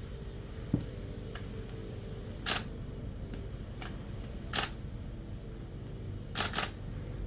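Several faint sharp clicks and four brief soft rustling bursts, two of them close together near the end, over a steady low hum in a small room.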